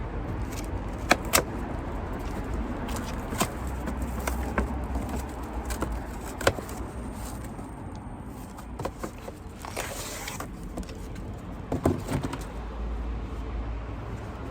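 Scattered clicks, knocks and light clatter of hands and tools handling car parts, over a low background rumble, with a brief hiss-like burst about ten seconds in.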